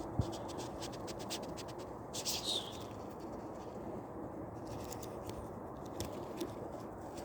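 Small clicks and scratching as a hook with a stuck barb is worked out of a perch's lip, with a brief louder scrape about two seconds in, over a steady low hiss.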